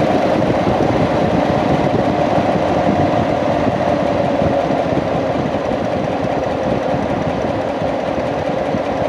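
2016 Corvette C7's 6.2-litre LT1 V8 running, heard from inside the engine bay, with a rapid, even ticking clatter over the engine sound. The owner suspects this mystery noise comes from the fuel pump or fuel line named in a service bulletin, since a new tensioner has not cured it.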